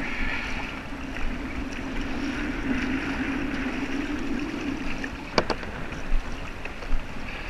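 Choppy bay water splashing and lapping against a plastic Hobie Revo 13 kayak hull as it is paddled. Three sharp knocks come in the last two seconds or so.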